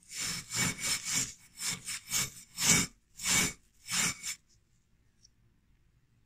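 Hand wire brush scrubbing deep rust off a rifle barrel in quick back-and-forth strokes, about ten of them over four seconds, then stopping.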